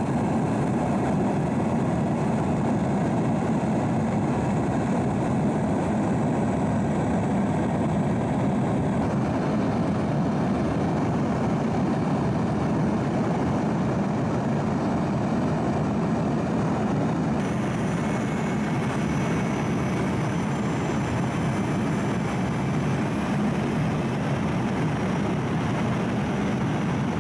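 Steady drone of an aircraft's engines heard from inside the cabin, a constant low hum with noise. The tone shifts slightly twice, about nine and seventeen seconds in.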